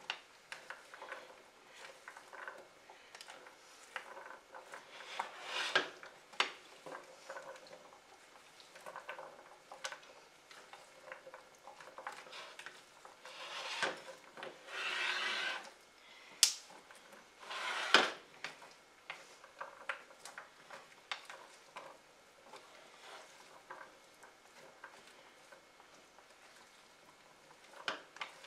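Silicone spatula stirring cubes of butternut squash in a glass baking dish: soft scrapes and frequent light clicks against the glass. There is a longer scrape about fourteen seconds in, and two sharp knocks soon after.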